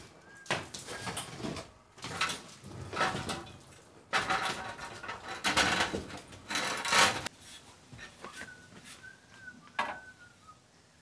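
Stone and old mortar being scraped and knocked loose from a rubble stone wall, in several noisy rattling stretches. Near the end a bird chirps a few times.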